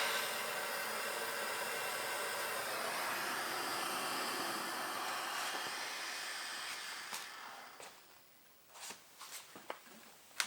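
Handheld gas torch flame hissing steadily while it heats a brake caliper bracket bolt seized with red Loctite, softening the threadlocker. The hiss dies away about eight seconds in, and a few light clicks and knocks follow.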